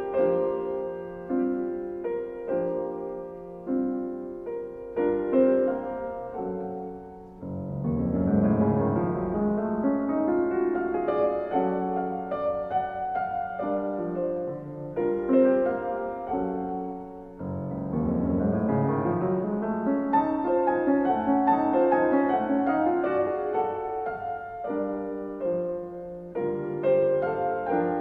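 Background piano music: a slow, gentle piece of single notes and chords, with rising arpeggios that sweep up from the bass twice.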